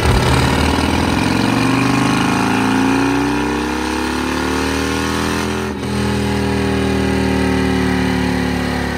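Harley-Davidson Road King's Screamin' Eagle 131 V-twin engine pulling on a chassis dyno, its revs climbing steadily under load for about six seconds. It breaks off briefly, then runs on at a high, steady pitch.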